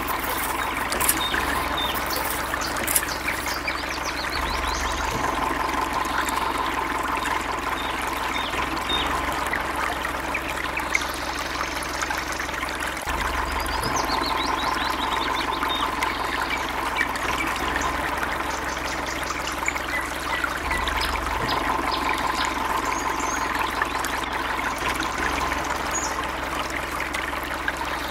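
Water trickling steadily through a small cut in a mud bund into a flooded paddy.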